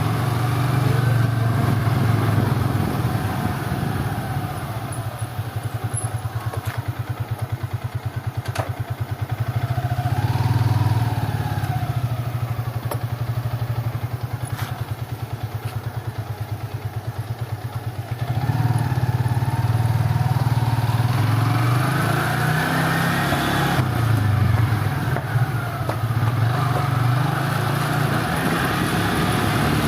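Motorcycle engine running. It putters quickly and evenly through the middle, then grows louder from about eighteen seconds in, with the pitch rising and falling.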